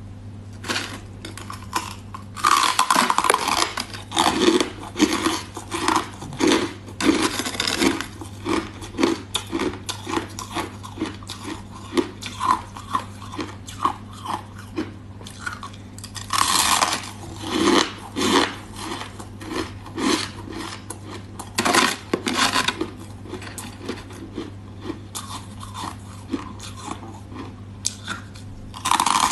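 Crushed ice being bitten and chewed close to the microphone: loud, rapid crunches in irregular runs, with louder bouts of biting about three seconds in and again around the middle and two-thirds of the way through, over a steady low hum.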